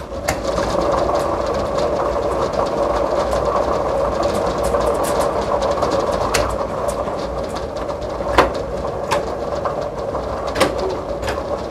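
Lottery ball machines running: numbered balls tumbling and clattering inside a spinning clear drum over a steady whirr, with scattered sharper clacks, the loudest about eight seconds in.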